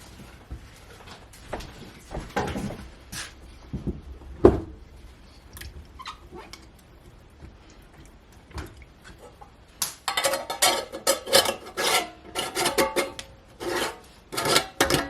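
Scattered light knocks and clicks. About ten seconds in, plucked-string background music starts.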